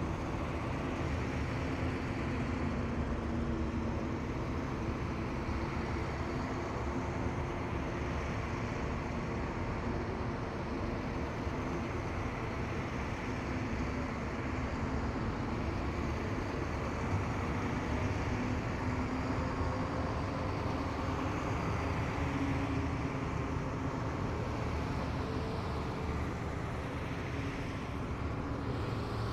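Column of heavy military vehicles driving past, a steady engine rumble from several engines whose pitch drifts slowly.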